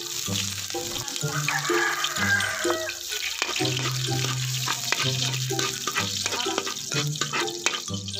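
Chopped garlic sizzling and crackling in hot oil in a large wok, stirred with a metal ladle, with short sharp crackles throughout. Background music with held bass notes plays underneath.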